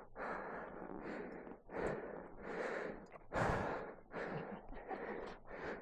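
A person breathing hard and fast, out of breath, with quick heavy breaths coming about once or twice a second.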